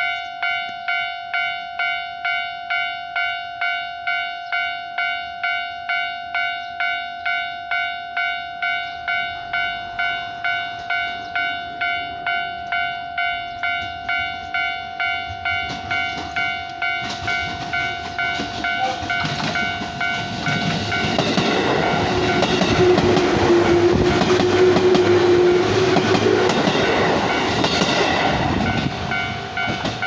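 A Japanese level-crossing alarm rings steadily at a little under two strikes a second. From about halfway, a JR 205-series electric train grows louder and passes close by, its wheels clacking over the bolted rail joints, with a held tone for a few seconds in the middle of the pass.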